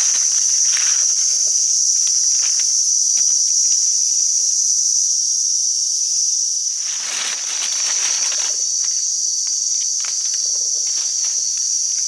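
Loud, steady chorus of forest insects, a shrill high drone that never lets up. Dry-leaf rustling and crackling comes and goes over it, busiest about seven to eight seconds in.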